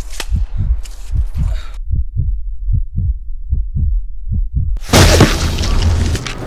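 Heartbeat sound effect: low, even thumps about four a second, alone for a few seconds after the other noise drops away. Near the end, a sudden loud blast of noise with a low rumble for about a second.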